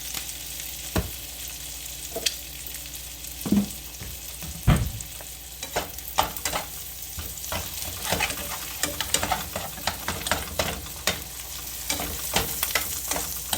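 Eggs frying in butter in a skillet, with a steady sizzle and many short sharp pops and scrapes that come more often in the second half.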